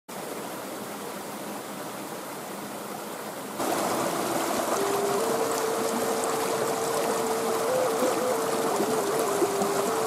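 A creek running and splashing over rocks; a few seconds in the sound gets louder and a wooden end-blown flute comes in over the water, playing slow, long held notes that step up in pitch, with a brief wavering phrase about eight seconds in.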